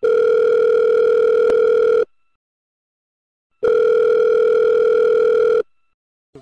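Telephone ringback tone, the sound of a call ringing at the other end: a steady mid-pitched tone held about two seconds, twice, with a pause of about a second and a half between.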